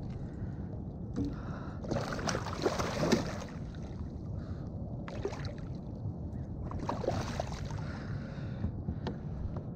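Water moving around a kayak, with a steady low rumble of wind on the microphone. There are two louder rushing bursts, about two seconds in and about seven seconds in, and a couple of light clicks.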